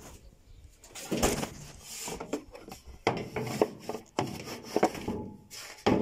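Intermittent knocks and clatter of plastic and sheet metal as a front-loading washing machine's parts are handled and fitted back together. Near the end the plastic detergent dispenser drawer is pushed into place.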